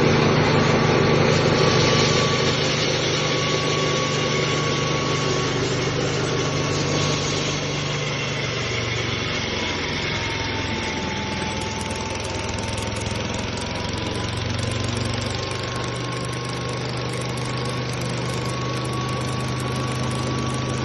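Portable mini rice milling machine running steadily with a continuous mechanical hum and whine. Its pitch sags slightly about halfway through, then recovers.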